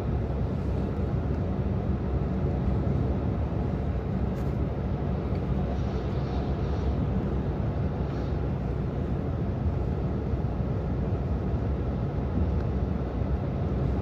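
Steady low rumble of a car driving along a road: engine, tyre and wind noise heard from inside the moving car.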